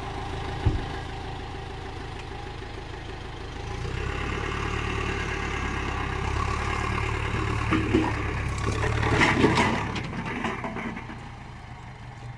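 Farm tractor's diesel engine running, growing louder about four seconds in as it pulls on the tow strap, with a sharp knock just under a second in and several knocks and clatters around eight to ten seconds in.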